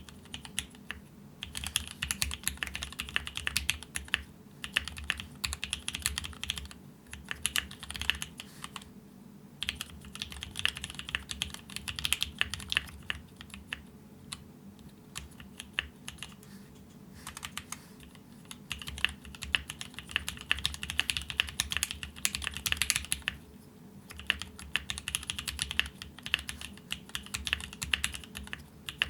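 Typing on a gasket-mounted mechanical keyboard with Mekanisk Ultramarine switches on an aluminium plate: rapid runs of keystrokes, broken by short pauses every few seconds.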